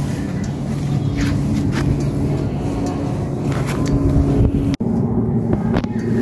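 Royal Enfield Super Meteor 650's parallel-twin engine idling steadily through an aftermarket exhaust, a deep even bass note. Near the end the sound cuts out for an instant, then an engine idles on.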